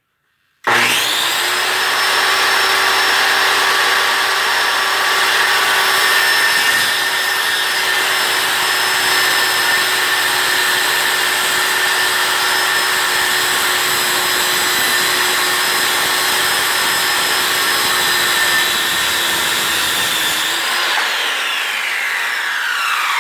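Circular saw switched on about a second in and running steadily through a cut across a wooden board. Near the end the trigger is released and the whine falls in pitch as the blade spins down.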